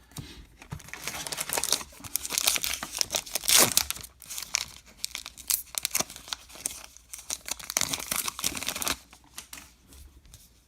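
A trading card pack wrapper being torn open and crinkled by hand, in a run of crackling rips and rustles that is loudest about three and a half seconds in and dies away near the end.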